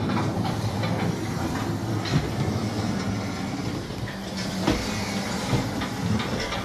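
A steady mechanical rumble with a low hum and scattered clicks and knocks.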